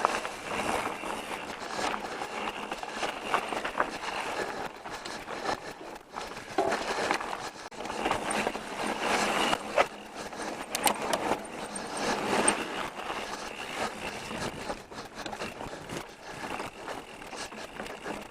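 Pivot Switchblade mountain bike rolling over a dirt trail: uneven tyre noise on dirt, with scattered clicks and knocks from the bike as it bounces.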